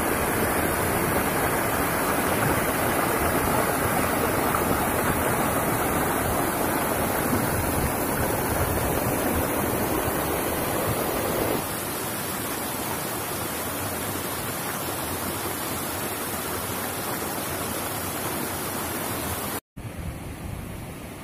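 Shallow rocky stream rushing and splashing over boulders, a steady loud rush of water. About halfway through it steps down a little in level. Near the end it cuts out for a moment and returns quieter and more distant.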